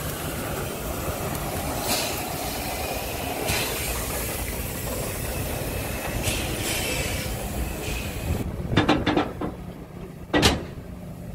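Steam locomotive 99 331, a narrow-gauge Molli tank engine, running slowly past, with exhaust chuffs every second or two over a steady mechanical running noise. Near the end, a few sharp clicks and one loud knock.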